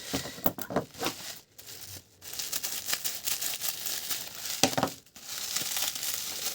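Crinkly plastic packaging of a memory card being handled and opened, an irregular run of crackles with a few brief lulls.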